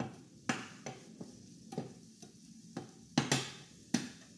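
A kitchen utensil stirring food in a pan: a string of sharp clinks and knocks at uneven intervals, over faint sizzling.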